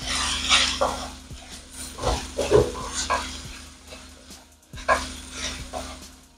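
Sliced bell peppers and onions frying in oil in a wok, stirred and scraped with a wooden spatula in a series of strokes over a steady sizzle.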